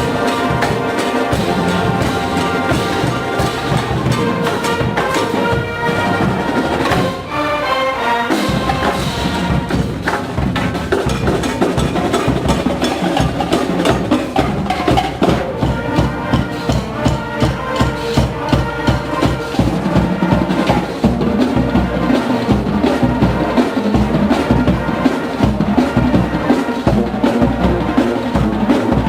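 College marching band playing: brass chords over the drums at first, then from about eight seconds in a steady, heavy bass-drum beat drives the music under the horns.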